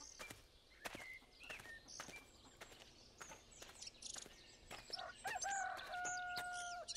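Faint village farmyard sounds of chickens and small birds chirping, with one long, steady call held for about a second and a half about five seconds in.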